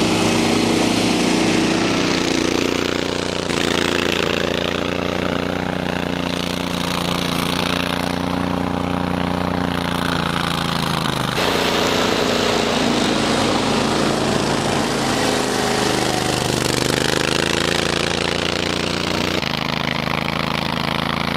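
Stella URS100 tracked rotary brush mower running at high revs with its blade engaged while it cuts through tall grass. Its 27 hp Honda iGXV800 V-twin engine runs steadily, and the sound changes abruptly a few times.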